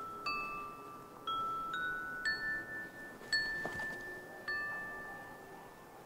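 Celadon (glazed porcelain) instruments struck one note at a time, each a clear, bell-like ringing tone that sustains: six strikes, mostly stepping upward in pitch, with the ringing dying away near the end.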